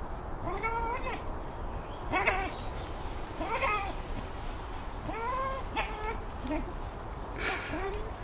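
An animal crying out repeatedly: about seven short calls, one every second or so, each rising and then falling in pitch.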